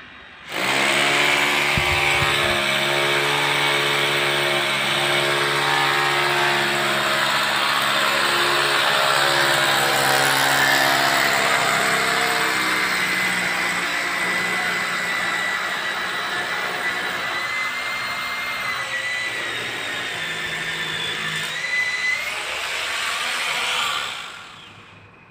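Handheld power tool, such as a drill, running continuously for about 24 seconds with a wavering whine, then fading out near the end.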